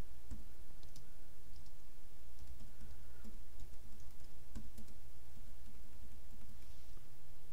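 Typing on a computer keyboard: scattered keystrokes with short pauses between them, over a steady low hum.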